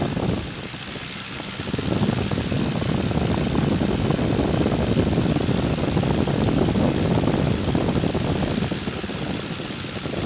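De Havilland Tiger Moth biplane in flight: its engine and propeller running steadily, with wind rushing past the open cockpit. The noise dips for about a second just after the start, then returns to full level.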